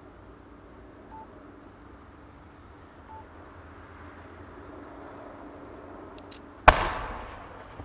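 One aerial firework shell bursting with a single loud boom near the end, its rumble dying away over about a second. Before it, a low steady background with two short electronic beeps about two seconds apart.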